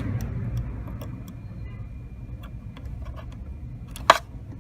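Small metallic clicks and ticks from prying a retaining clip off a Porsche 914 clutch cable, with one sharp click about four seconds in, over a low steady rumble.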